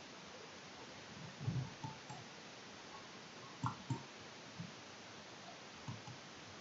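Quiet room hiss with a handful of soft, low clicks and knocks: a small cluster about a second and a half in, a close pair near the middle, and single ones later.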